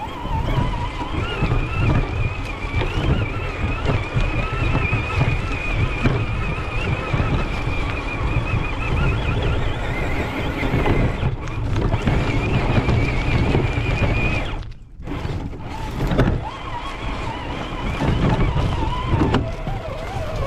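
Traxxas TRX-4 G-Wagon RC crawler's electric motor and gearbox whining, the pitch wavering with the throttle, over a rumble of bumps and rattles from the truck driving over rough dirt trail, heard from a camera mounted on the truck. The whine and rumble cut out briefly about fifteen seconds in, then resume.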